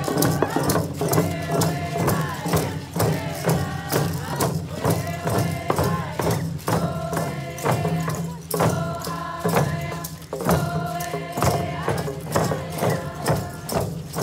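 Hand drums beaten in a steady, even beat while a group of voices sings a hand drum song, with shaker rattles rattling along.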